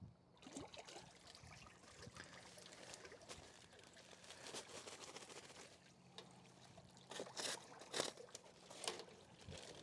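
Faint, steady churning of water in a plastic barrel stirred by an electric trolling motor's propeller, mixing hot water and sugar into syrup. From about seven seconds in, several louder rustling bursts from a paper sugar sack being handled.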